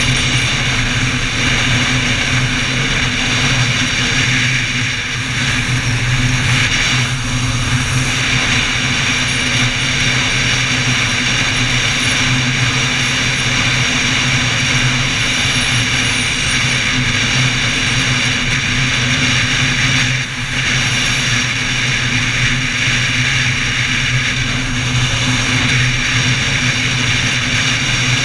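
Motorcycle engine running steadily at cruising speed, heard from on the bike with a rush of wind and road noise; the level dips briefly about twenty seconds in.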